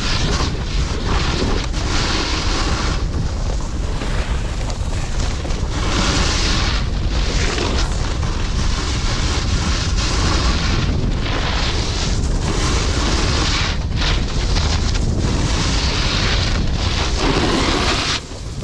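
A snowboard's edges scraping across hard-packed groomed snow, the hiss swelling and fading with each turn, under a steady rumble of wind buffeting the microphone.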